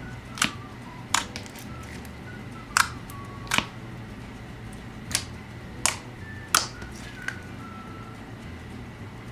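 Clear slime with small fruit slices being squeezed and played with, giving about eight sharp popping clicks at uneven intervals. Soft background music underneath.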